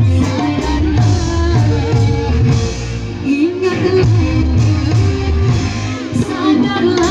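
A woman singing a melodic song over backing music with a steady low beat.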